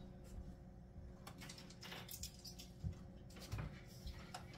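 Faint scattered clicks and small knocks from things being handled, over a steady low hum.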